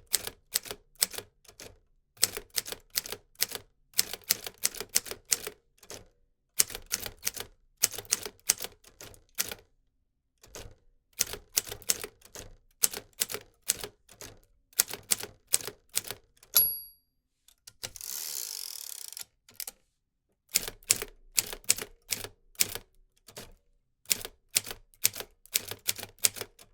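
1958 Hermes 2000 manual typewriter being typed on: keys striking in quick clusters separated by short pauses. About two-thirds of the way through, a short high ring sounds once, then a smooth sliding rasp lasts about a second, typical of the margin bell and the carriage return, before typing starts again.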